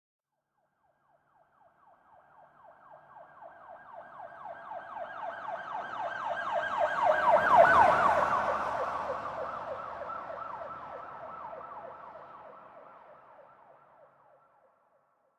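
Police car siren in a fast yelp, several rising sweeps a second, approaching, passing about halfway through and fading away, its pitch dropping slightly as it goes by. A low road rumble from the passing vehicle is heard as it is closest.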